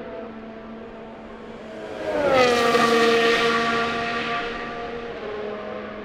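Formula 1 car's turbo V6 passing close by about two seconds in: it comes in suddenly, its pitch drops sharply as it goes past, then it fades. Other cars' engines are heard farther off throughout.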